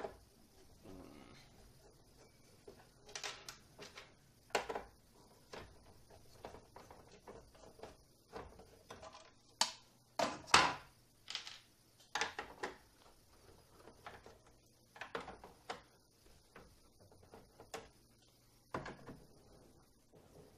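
Screwdriver work on the plastic back of an LCD: irregular clicks, scrapes and knocks as screws are taken out and the stand is taken off and set down on the bench. The loudest knocks come about halfway through.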